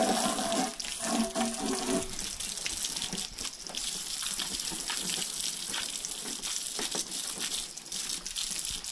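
Garden hose spray nozzle jetting water onto an outdoor Wi-Fi access point and the car roof beneath it: a steady hiss with spattering, simulated heavy rain. A hum sits under the spray for the first two seconds, then stops.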